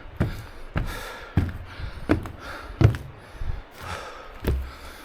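A hiker's footsteps on a mountain path, a dull thud roughly every two-thirds of a second at a steady walking pace.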